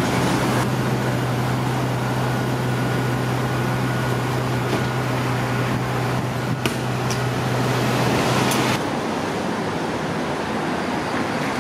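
City street traffic noise with a steady low engine hum from a nearby vehicle. The hum and much of the hiss cut off abruptly about nine seconds in, leaving a softer background rush.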